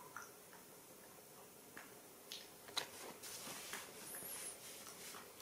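Faint scattered ticks and light taps in a small tiled room, with a short high wavering chirp about four seconds in.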